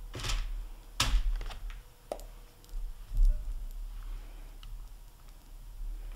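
A plastic spaghetti server and spatula clicking and tapping against a glass bowl of melted chocolate candy coating while a ball is dipped: a few sharp clicks in the first two seconds, a soft bump about three seconds in, then quieter handling.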